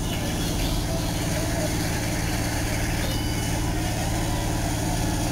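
A heavy engine idling steadily, a low even hum, from the paving equipment on the job.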